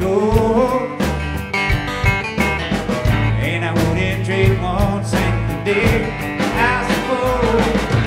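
Live band playing a country-rock song on acoustic guitar, upright bass, electric guitar and drums, with a lead melody line that bends up and down in pitch over a steady beat.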